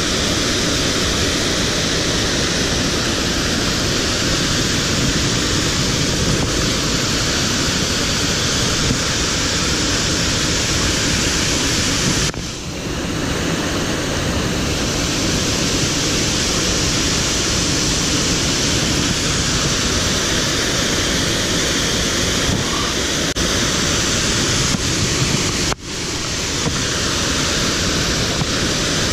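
Waterfall and fast river water rushing, a loud steady roar of white water that drops away briefly twice.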